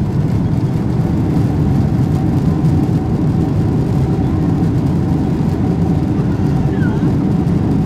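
Cabin noise of a Boeing 767 during its landing rollout: a steady, loud, low rumble from the engines and the wheels on the runway.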